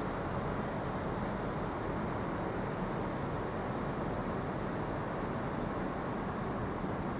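Steady city street traffic noise, an even rumble with no single vehicle standing out.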